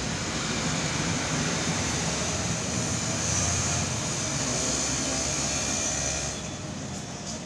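Street traffic noise with the engine of a city bus running close by, a steady low rumble with a hiss above it; it gets quieter about six seconds in.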